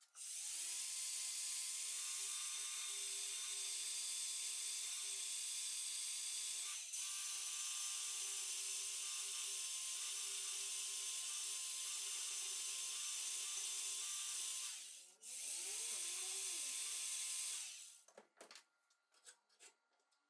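Cordless angle grinder with a belt-sander attachment spinning up and grinding a metal part held in a vise: a steady high hiss of the abrasive belt on metal over the motor's whine. It dips briefly about a third of the way in, winds down and spins back up about three quarters in, then stops, followed by a few light clicks.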